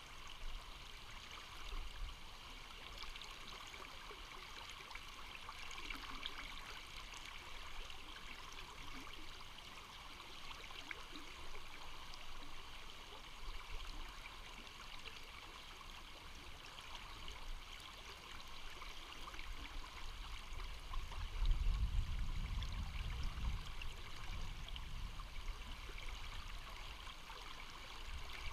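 River water flowing over rocks, a steady rushing. A low rumble swells for a few seconds about three-quarters of the way through.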